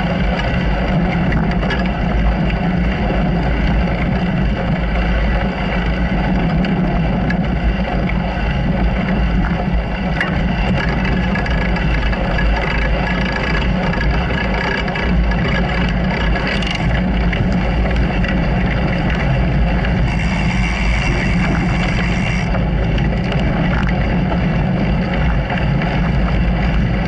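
Small off-road vehicle's engine running steadily under way, with no change in speed or revs.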